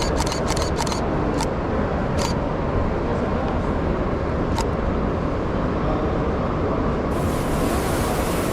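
Steady low rumble of cars at an outdoor car show, with a few sharp clicks in the first few seconds. About seven seconds in, a loud hiss of wind on the microphone comes in.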